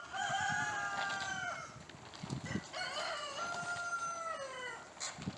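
A rooster crowing twice, two long crows that each fall away in pitch at the end, over low wind rumble.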